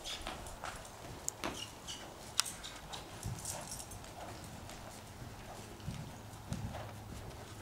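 Hoofbeats of a ridden horse trotting and cantering on soft wood-chip arena footing: a loose run of dull thuds, with two sharp clicks early on.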